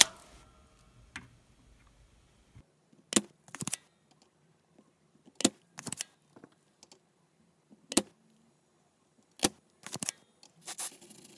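Spring-loaded manual desoldering pump (solder sucker) snapping as it is cocked and fired, pulling molten solder out of through-hole pins: a series of sharp clicks, several in close pairs about half a second apart.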